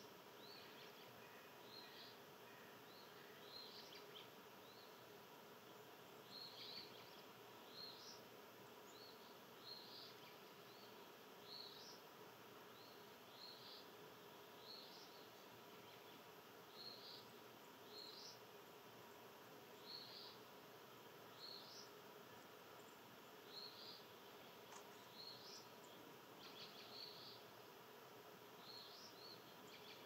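A small animal giving short, high chirps over and over, about one a second and unevenly spaced, faint against a steady outdoor background hum.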